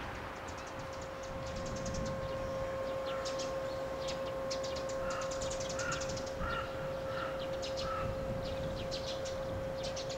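A crow cawing about five times in quick succession midway, over quick high chirping trills from small birds and a steady high-pitched hum.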